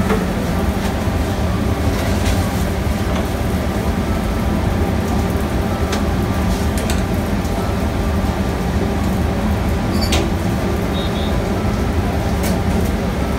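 Steady low drone of commercial kitchen machinery, with a few sharp clicks and clatters as a foam takeaway box and utensils are handled.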